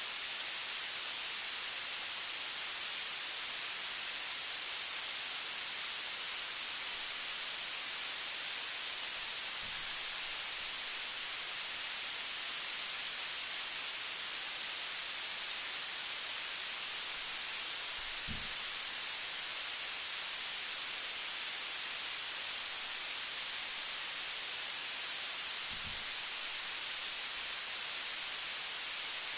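Steady, even hiss of recording noise with no other sound above it, and three faint low thumps spaced several seconds apart.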